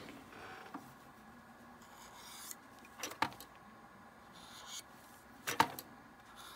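X-Acto No. 17 chisel blade scraping across the top of a model plate-steel load, cleaning off squeezed-out glue: a few faint, short scrapes with a couple of light ticks.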